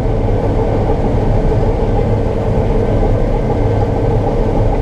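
Combine harvester running while harvesting soybeans, a loud, steady drone of engine and threshing machinery heard from inside the cab.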